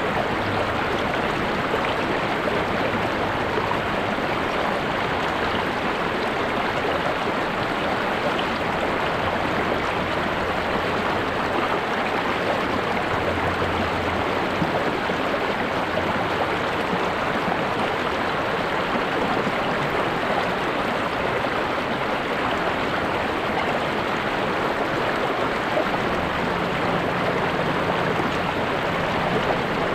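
River water rushing and burbling steadily over rocks, an even flow with no breaks.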